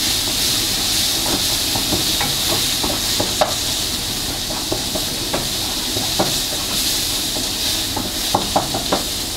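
Food sizzling in hot oil in a cooking pot while being stirred. Occasional short clinks of the utensil against the pot, a few of them near the end.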